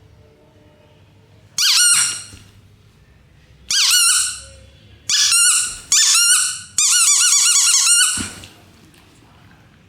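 An electronic sound-making dog toy ball plays its high-pitched warbling sound effects five times, each starting suddenly; the last is longer, with a faster warble.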